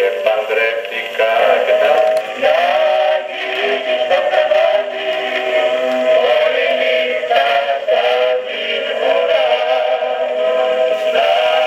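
A 78 rpm record of a man singing with accompaniment, played on a gramophone with a metal soundbox: thin, narrow-band sound with no deep bass or high treble. It cuts off suddenly at the end.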